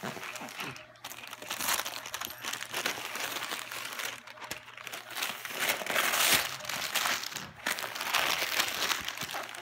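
Wrapping paper crinkling and rustling as a gift box is handled and unwrapped, in several louder surges.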